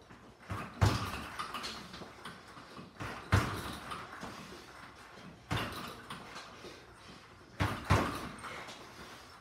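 Gloved punches smacking a double-end bag in four flurries a couple of seconds apart, some as quick double hits, each impact trailing off briefly.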